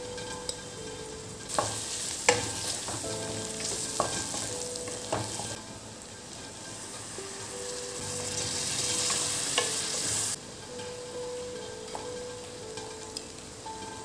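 Potatoes and masala sizzling in a hot nonstick kadai while being stirred with a wooden spatula, with a few sharp knocks of the spatula against the pan. The sizzle swells twice and stops suddenly about ten seconds in.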